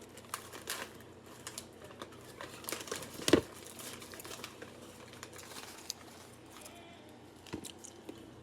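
Crinkly plastic snack-chip bag being handled and rustled, with scattered light crackles and one sharper crack a little over three seconds in.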